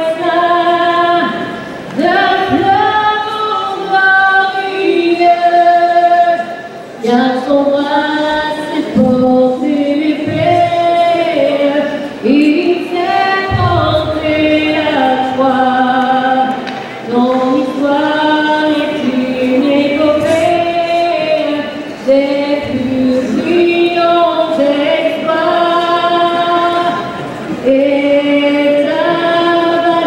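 Several voices singing a cappella in harmony, women's voices among them, held notes in phrases of a few seconds with brief breaks between.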